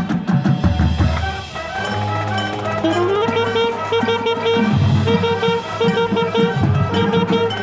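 High school marching band playing: brass and saxophones over drums and percussion. Low held notes sit underneath, and about three seconds in a quick upward slide leads into a repeated rhythmic figure of short punchy notes.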